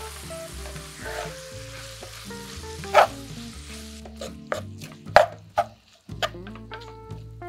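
Chopped onions and browned ground beef sizzling in a hot frying pan, then a wooden spatula stirring and knocking against the pan several times; the sizzle fades about four seconds in as the stirring takes over.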